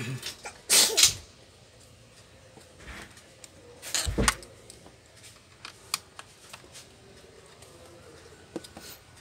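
Clicks and clatters of hands and small tools working on an opened laptop: two loud clacks about a second in, another knock with a dull thud about four seconds in, and light ticks between.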